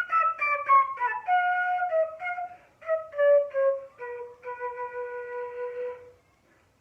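Solo flute playing a melody of short notes that steps down from the middle of its range into lower notes, then holds one long low note that stops about a second before the end. The fall in pitch is the game's cue for low pitches.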